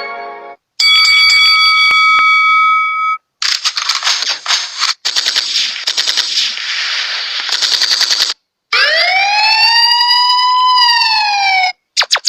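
A run of separate short sound effects, each cut off sharply. First a ringing chord held about two seconds, then about five seconds of dense, rapid rattling. Then a pitched siren-like glide that rises, holds and falls, and near the end a quick series of falling zips.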